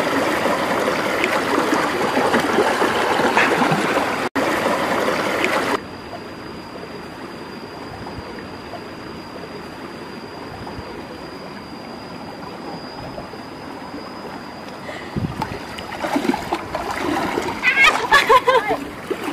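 Stream water running over rocks, a steady rush for the first six seconds or so that then drops to a quieter wash. Near the end come irregular splashes in shallow water as a person wades.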